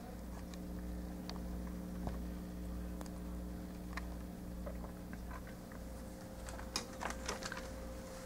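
Quiet room tone with a steady low electrical hum, broken by scattered faint clicks and a short flurry of sharper clicks about seven seconds in.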